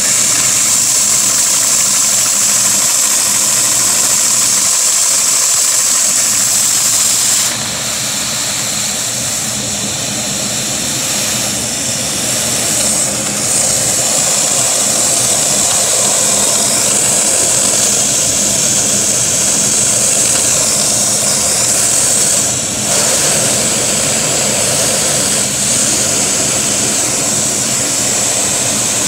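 A Lego vacuum engine idling slowly, its flywheel turning, with the steady rush and high whine of the vacuum suction that drives it covering the sound. The level dips briefly about a quarter of the way in, then holds steady again.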